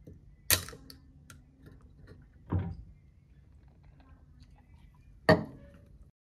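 A Red Bull aluminium drink can is popped open with a sharp crack and a short hiss. About two seconds later there is a gulp as it is drunk, and about five seconds in there is a second sharp crack.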